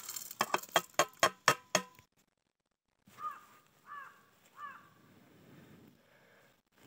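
A quick run of about eight sharp, ringing metallic clinks in the first two seconds, a steel plate knocked against the steel cooking pot as noodle pieces are tipped in. After a short break, a crow caws three times.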